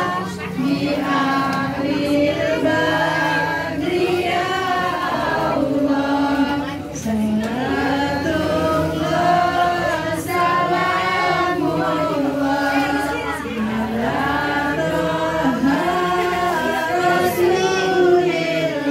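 A group of voices singing a slow melody together in unison, in long held phrases with short breaks between them.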